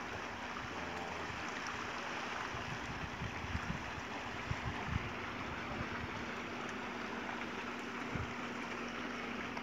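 Steady outdoor hiss with a faint steady hum under it, and scattered low buffets of wind on the microphone.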